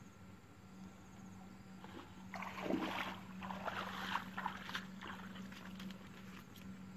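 Hands digging in wet mud and shallow water: a run of squelches and splashes starting a couple of seconds in, loudest near the start of the run, over a faint steady low hum.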